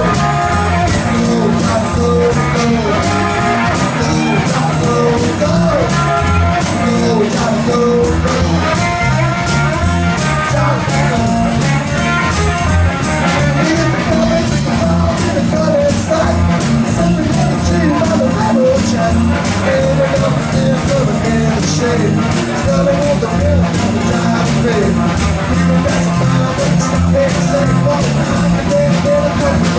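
Live rock and roll band playing: electric guitar over electric bass and a drum kit, with a steady driving beat.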